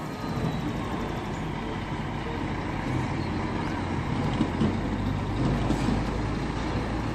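Diesel engine of a fuel tanker truck towing two tank trailers, running steadily as the rig drives slowly.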